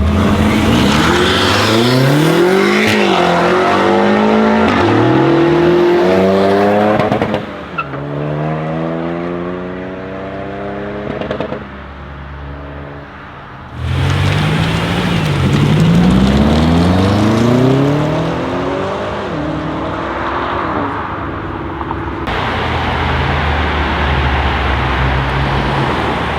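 Straight-piped BMW M5 F90 Competition's twin-turbo 4.4-litre V8 accelerating hard, its pitch climbing and dropping through several quick upshifts. It eases off briefly about halfway, then pulls hard through the gears again before settling into a steadier drone near the end.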